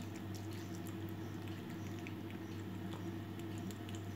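Domestic cat eating wet food from a plate: faint, scattered chewing and smacking clicks over a steady low hum.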